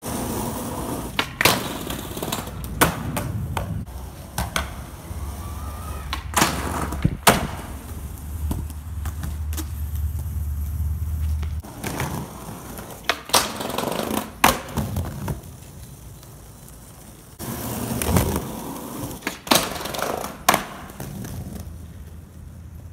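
Skateboard wheels rolling on concrete with a low rumble, broken by many sharp wooden clacks of the board's tail popping and the board landing. There is a quieter stretch about two-thirds of the way through.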